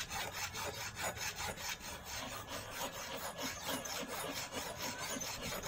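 A small metal hand file rasping back and forth across steel spring wire in quick, even strokes. It is cutting the barb notch into a homemade eel fishing hook.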